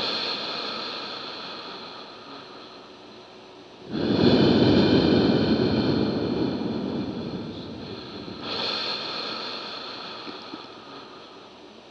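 Ambient soundtrack of wave-like surges of noise with a faint high ringing above them. One swell fades away from the start, and new ones rise abruptly about four seconds in and again about eight and a half seconds in, each dying away slowly.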